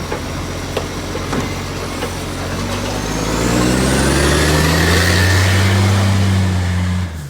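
Garbage truck diesel engine, which has an exhaust leak, running with sharp ticks over the engine note, then revving up about three seconds in. It holds the higher revs with a whine rising in pitch, and the sound cuts off abruptly near the end.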